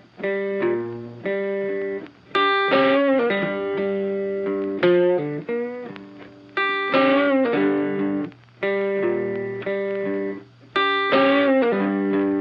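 Background music: a guitar with effects plays a melodic phrase that repeats about every four seconds.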